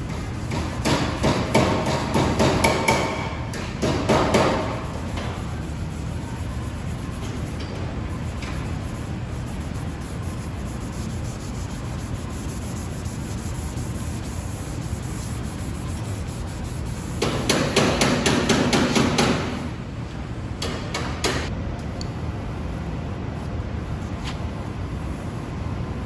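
Rapid hammer-like tapping on the car's bodywork in three bursts: about a second in, again around four seconds in, and a longer run around seventeen seconds in. A steady low hum runs underneath.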